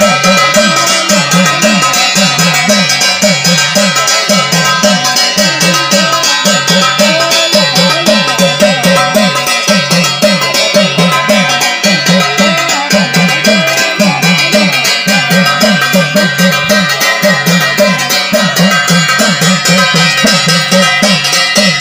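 Live jagar ritual music: a drum beaten fast and steadily, with metallic ringing and a wavering singing voice over it.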